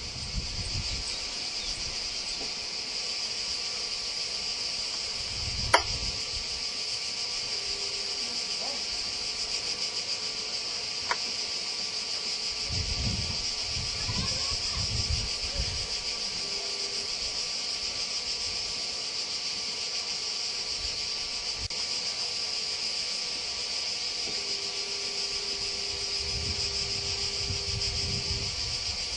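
Cicadas chirring in a steady, unbroken high-pitched chorus. A sharp click comes about six seconds in and a smaller one around eleven seconds, with low rumbles coming and going.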